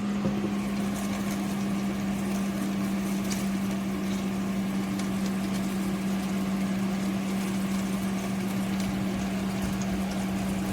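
A countertop electric cooking appliance running, giving a steady electric hum over a whirring fan noise.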